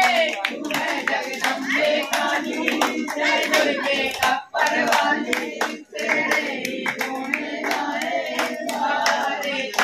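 A group of voices singing a devotional chant, with many hand claps throughout.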